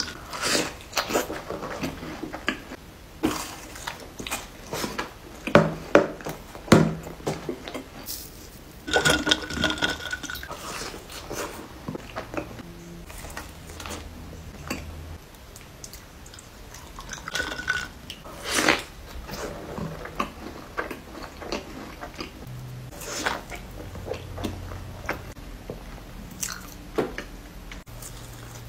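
Close-miked eating: bites and wet chewing of soft, frosted desserts and sauce-dipped food, with irregular sharp mouth clicks and smacks. The loudest smacks come a few seconds in and again about two-thirds of the way through.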